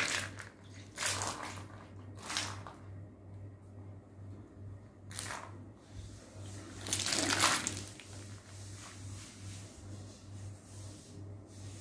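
Water splashed in about five separate pours onto a cotton bedsheet spread on a floor, the loudest two about five and seven seconds in, soaking the sheet so the sun-dried rice papads stuck to it will come loose.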